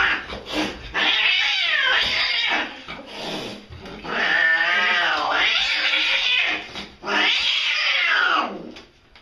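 A cat yowling in three long, drawn-out calls, the pitch wavering through each.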